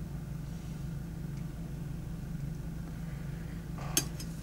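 A steady low hum, with one short knock about four seconds in.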